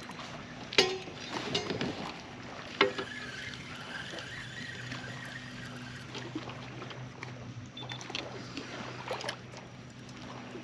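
Baitcasting rod and reel being handled and cast from a kayak: two sharp clicks, about one and three seconds in, and a few lighter ticks over a faint steady low hum.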